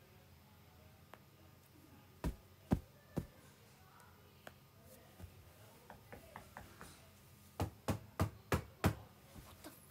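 A series of sharp knocks or taps: three about two to three seconds in, a run of lighter taps in the middle, then five quick knocks in a row near the end.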